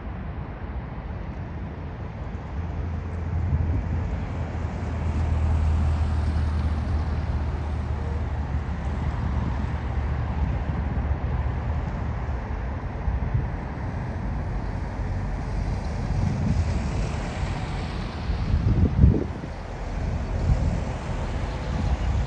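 Jet airliner on final approach to land, its engine noise building a few seconds in and sweeping past. Gusts of wind buffet the microphone near the end.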